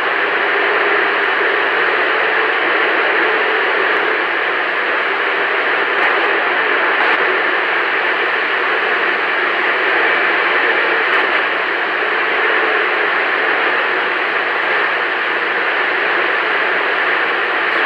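Steady hiss of static from a Galaxy CB radio's speaker, with the squelch open and no station coming through, the signal meter near its lowest reading.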